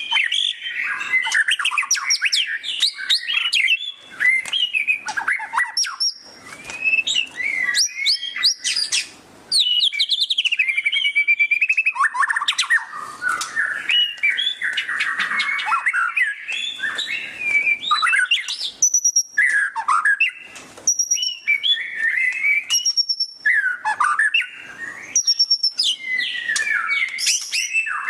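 White-rumped shama singing loudly and without pause: a varied stream of whistles and fast chattering trills in the 'ngeriwik' style. In the second half, short high whistled notes recur every second or two between phrases.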